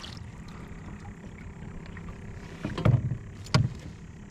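Two dull thumps about half a second apart, low and short, against a steady low rumble of wind and water: knocks against a kayak hull.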